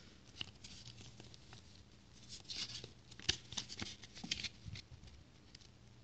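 Paper user manuals being handled and leafed through: faint rustles and small clicks, busiest in the middle.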